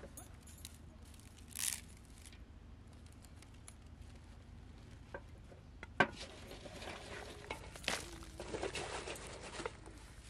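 Rustling, crinkling handling sounds: one short rustle under two seconds in, then a sharp knock about six seconds in followed by several seconds of irregular crackling and rustling.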